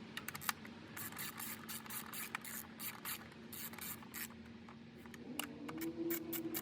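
Hand ratchet clicking in quick runs as it tightens the bolts of an engine cover. A steady low hum comes in near the end.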